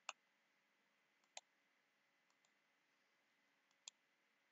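Three sharp computer mouse clicks, with a few fainter ticks between, over near silence: clicking through presentation slides.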